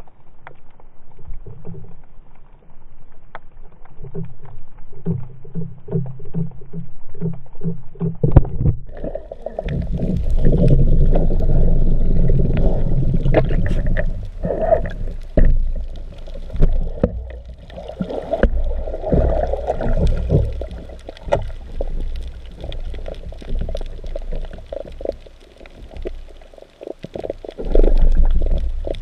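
Underwater water noise heard through a GoPro Hero3+ in its waterproof housing: soft regular low pulses at first, then from about nine seconds in a loud low rumbling and sloshing as the diver moves, with scattered sharp clicks.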